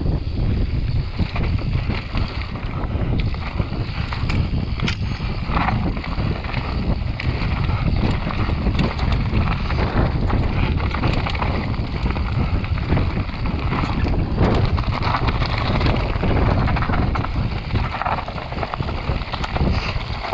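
Wind rushing over an action camera's microphone on a fast mountain-bike descent, with the clatter of the bike on a rocky dirt trail: tyres on loose stone, chain slap and frequent knocks.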